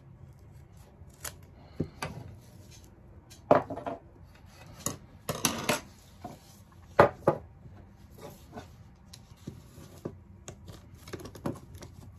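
Scissors snipping and chewing through old, hardened ratchet-strap webbing in irregular sharp cuts, with clicks and scraping as the metal ratchet buckle is handled. The loudest snips come about three and a half seconds in and again about seven seconds in.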